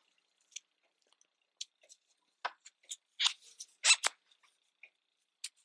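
Crochet hook and yarn being worked by hand: scattered soft clicks and rustles, the sharpest ones a little past the middle.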